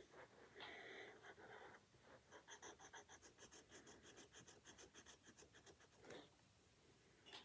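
Quiet pencil scratching on paper while drawing. There is one longer stroke about half a second in, then a quick run of short strokes at about six a second, and a last stroke near the end.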